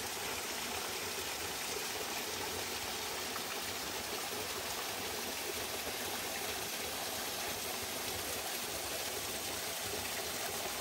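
Small waterfall splashing over rock ledges in a mountain stream, a steady sound of falling water.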